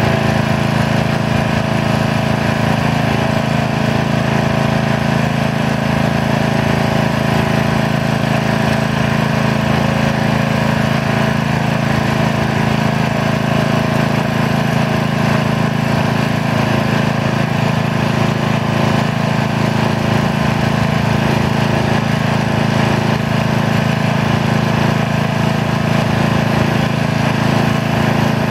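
Engines running steadily at a constant speed: a Kubota mini excavator's engine working as it digs and loads soil, alongside a small motorised muck-truck dumper.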